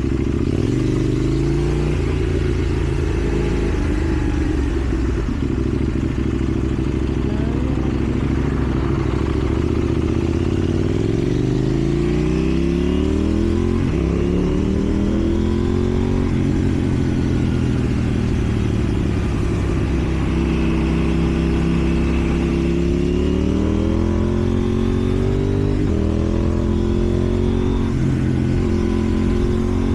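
KTM Duke 790's parallel-twin engine running through a slip-on exhaust while riding: the revs climb and fall several times as it pulls and shifts, with a long climb about ten to fourteen seconds in, and hold at a steadier pitch near the end.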